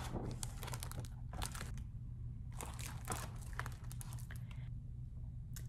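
Pages of a hardcover picture book being turned and the book handled: an irregular string of short paper rustles and crinkles, over a steady low hum.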